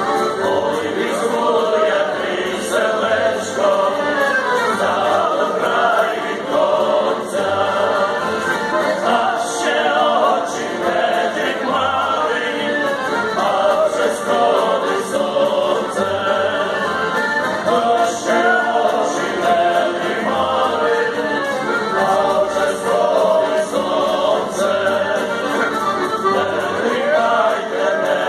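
Street band of acoustic guitars, accordion, clarinet and upright double bass playing a song, with several men singing together in chorus. The double bass keeps a steady low beat.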